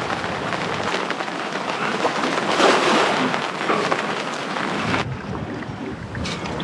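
Steady rushing of rain and wind from a passing squall at sea. The sound changes abruptly about a second in and again about five seconds in.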